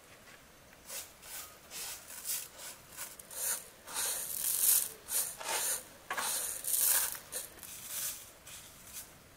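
Dry rice grains rustling and scraping across a large metal tray as a hand sweeps and picks through them, in a run of irregular swishes, loudest around the middle.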